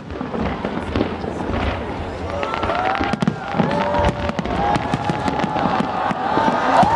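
Fireworks bursting and crackling in a rapid series of sharp bangs, with the watching crowd's shouts and whoops growing toward the end.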